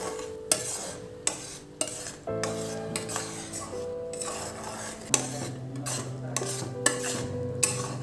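A metal spatula stirring and scraping milk and vermicelli in a kadai, with several sharp clinks of the spatula against the pan. Background music plays over it.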